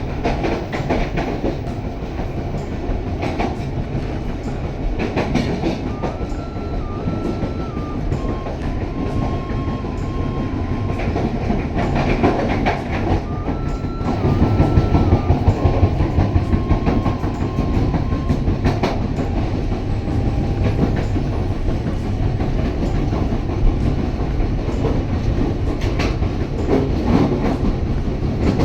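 Passenger train rolling along, heard from aboard the carriage: a steady low rumble with the clickety-clack of wheels over rail joints, a little louder about halfway through. A faint stepped high tune plays twice in the middle.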